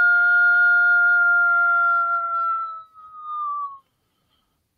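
FoxPro X24 electronic predator caller playing a long, steady howl on one pitch. It wavers and slides down near the end, then cuts off abruptly about four seconds in.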